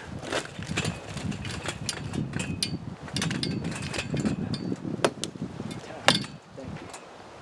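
Heavy pine log being pried and shifted off a fence: scattered knocks, scrapes and rustling of wood and bark, with one sharp loud knock about six seconds in.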